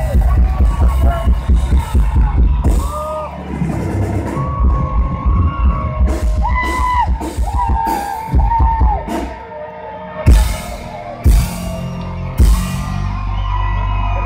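Alternative rock band playing live at high volume: dense drums and bass at first, then electric guitar with sustained ringing notes, and three big full-band hits about ten, eleven and twelve seconds in.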